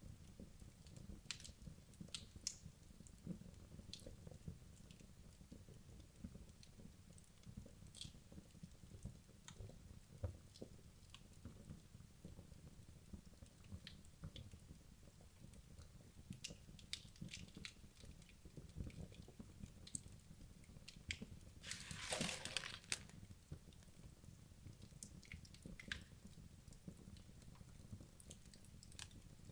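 Wood logs burning in a fireplace: faint scattered crackles and small pops over a low steady rumble. About three-quarters of the way through, a denser burst of crackling and hissing lasts about a second.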